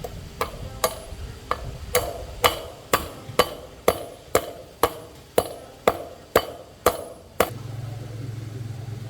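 A hammer striking a metal part about twice a second, around fifteen blows, each with a short metallic ring. After the last blow a steady low hum starts.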